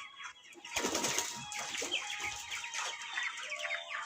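Chickens clucking and calling, with a loud burst of wing flapping starting just under a second in.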